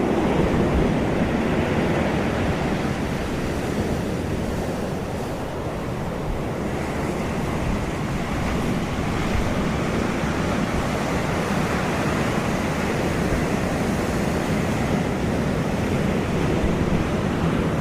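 Sea surf washing onto the beach in a steady roar, with wind buffeting the microphone.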